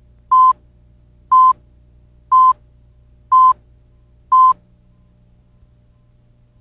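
Five short, identical, high-pitched beeps, one each second, then they stop: the countdown tones of a broadcast tape leader before the programme begins. A faint low hum runs underneath.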